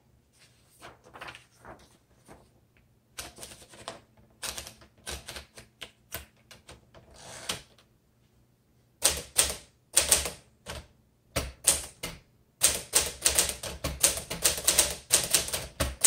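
1957 Smith Corona Sterling manual typewriter. At first there are softer clicks and a rustle as a sheet of paper is rolled into the platen. From about nine seconds in come loud, sharp typebar strikes, with a short pause near twelve seconds and then rapid, steady typing.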